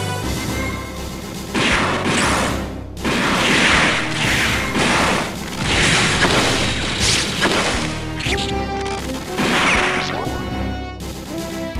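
Cartoon fight sound effects, a run of hits, smashes and whooshes coming every second or two, over a soundtrack of music with held notes.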